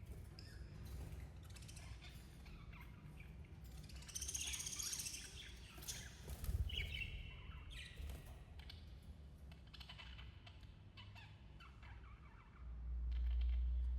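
Budgerigars chirping and chattering in short, irregular bursts, with a louder run of high chirps about four seconds in. A low rumble starts near the end.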